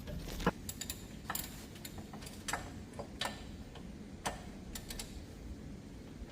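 A series of light, sharp clicks and taps, irregularly spaced, from hand tools and metal brake parts being handled during rear brake work.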